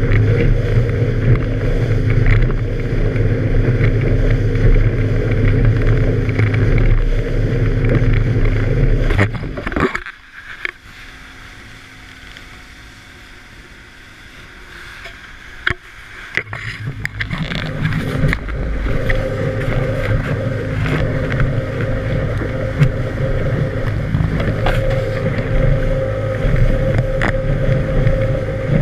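Outboard motorboat running at speed: a steady engine hum mixed with wind on the microphone and the hiss of spray off the hull. About ten seconds in the sound drops away sharply and stays much quieter for some seven seconds, then builds back up.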